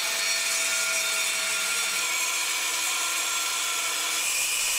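Angle grinder with a diamond cutting disc cutting through a concrete edging stone: a steady grinding noise under load.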